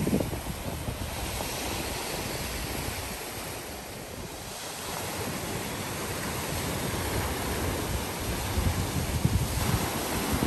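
Small sea waves breaking and washing over a boulder shoreline, a steady surf wash, with wind on the microphone.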